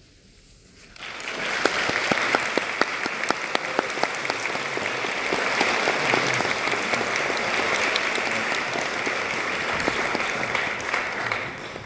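Audience applauding, coming in about a second in after a brief quiet and holding steady, with many single sharp claps standing out.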